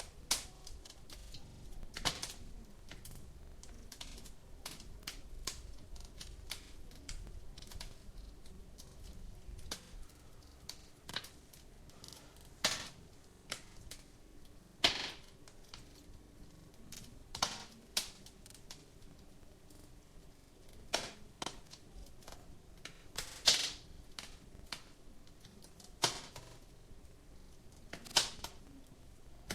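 Wood fire crackling: irregular sharp snaps and pops, a handful of them much louder than the rest.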